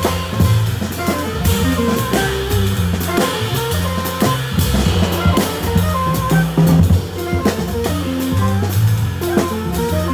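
Small jazz combo playing: drum kit with cymbal strokes, upright double bass walking low notes, and guitar.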